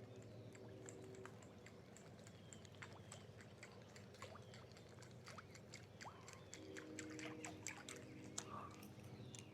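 Near silence: quiet outdoor ambience with faint scattered clicks and ticks and a faint low hum that comes and goes.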